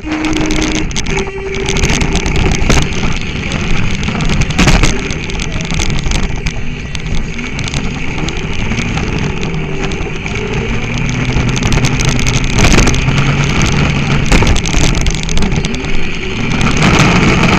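Loud, steady mechanical running noise close to the microphone. A low hum rises and falls in pitch, with a few sharp knocks, about five seconds in and again near thirteen seconds.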